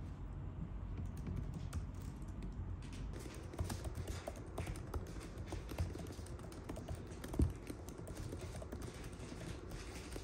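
Typing on a computer keyboard: a steady patter of irregular key clicks, with one louder low thump about seven seconds in.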